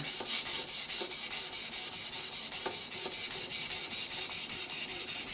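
A 320-grit sharpening stone on a guided-rod sharpening system rubbing back and forth along a hunting knife's edge in quick, even strokes, giving a scratchy, hissing rasp. This is the coarse first stage, forming the cutting edge bevel.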